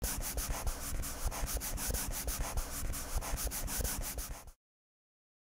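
Felt-tip marker scribbling fast back and forth, coloring in, in quick even strokes several times a second. It stops abruptly about four and a half seconds in.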